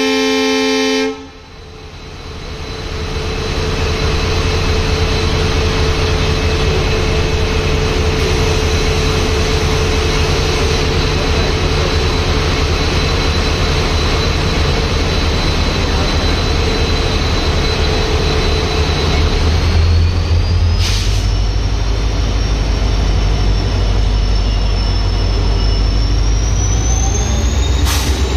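A diesel locomotive horn blast cuts off about a second in. Then the WDP-4D's EMD 710 sixteen-cylinder two-stroke engine builds up and runs loud and steady under load as the locomotive pulls away. About twenty seconds in, a high whine in its note rises in pitch.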